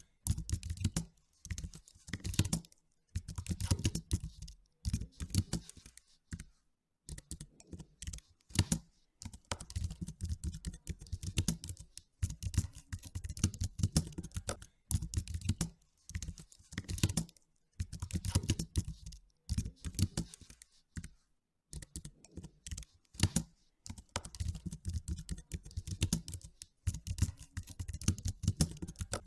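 Typing on a computer keyboard: rapid key clicks in bursts of a second or two, broken by short pauses.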